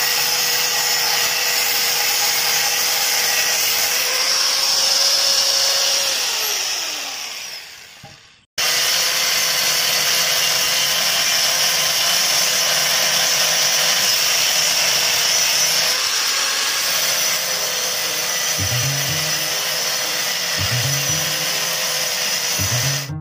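Angle grinder with a cut-off disc cutting into a steel motorcycle exhaust silencer: a steady high whine with a grinding hiss. About six seconds in it winds down and stops, falling silent for a moment; then it runs again at full speed and keeps cutting.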